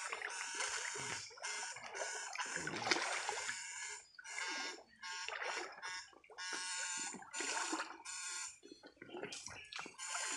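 Backpack electrofishing rig buzzing in short on-and-off bursts as its electrode poles are held in shallow creek water, with water splashing around the poles.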